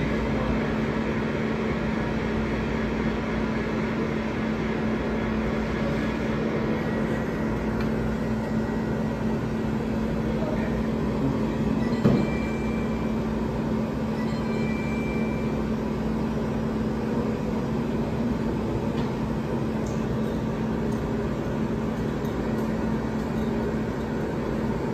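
Steady machinery hum and rumble of a pizza shop's kitchen equipment. A sharp knock comes about twelve seconds in, and two short high beeps follow a second or two apart.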